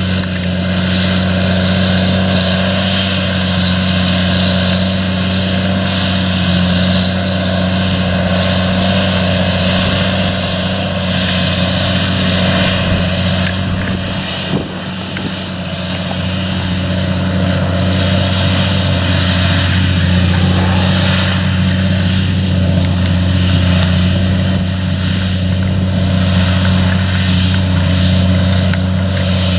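A steady engine drone with a strong low hum, dipping briefly about halfway through.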